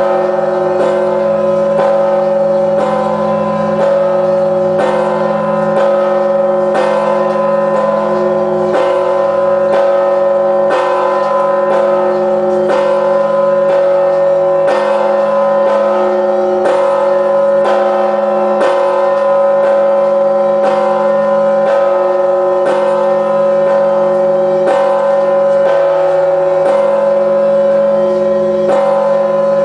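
A 7,150 kg church bell tolled at a steady pace of about one stroke a second, near 58 strokes a minute. Each stroke sounds over the long ringing hum left by the strokes before.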